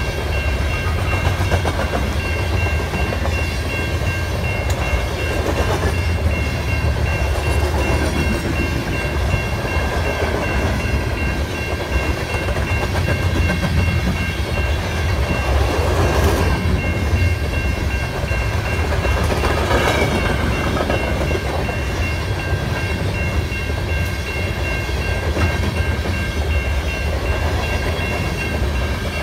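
Covered hopper cars of a potash freight train rolling past: a steady low rumble of steel wheels on the rails, with a thin steady high-pitched whine over it and two brief louder swells about two-thirds of the way through.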